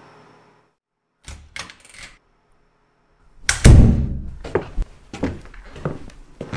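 A few light clicks, then a heavy thump about halfway through, followed by a run of sharp knocks.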